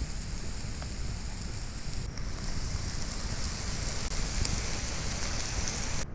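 Steady rain falling, an even hiss of drops, with a sudden change in the sound about two seconds in.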